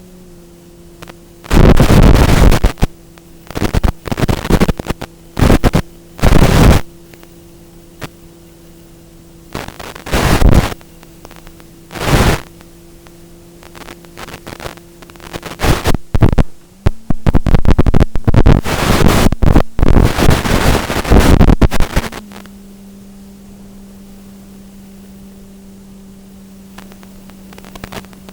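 Strong wind gusts buffeting the microphone in loud rumbling bursts, heaviest for several seconds past the middle, over a steady hum that steps up slightly in pitch twice.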